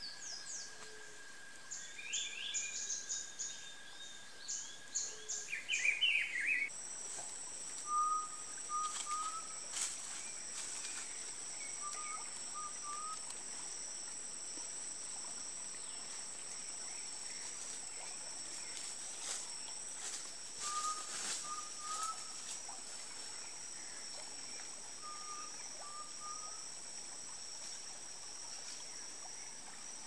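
Forest ambience: several small birds chirping during the first six seconds. About seven seconds in, a steady high-pitched insect drone starts and holds, and a short three-note bird call comes back every few seconds.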